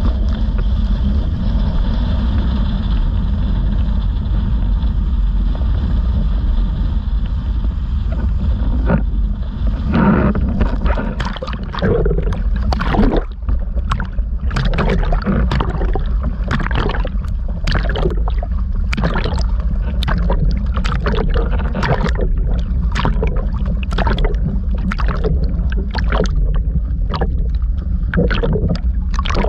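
Wind and water rushing past a windsurf rig planing at speed. About ten seconds in, this changes to irregular splashing and gurgling as small waves slosh over the half-submerged sail and the camera mounted on it, the sign that the rig is down in the water.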